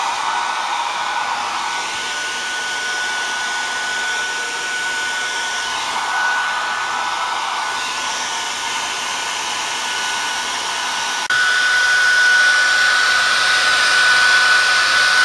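Hair dryer blowing steadily while drying a freshly bathed dog, a steady rush of air with a high whine through it. About eleven seconds in it abruptly gets louder and stays louder, as if switched to a higher setting or moved closer.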